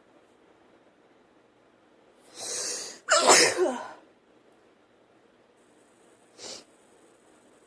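A woman sneezes once: a sharp breath in, then a loud voiced sneeze about three seconds in, followed by a short sniff near the end.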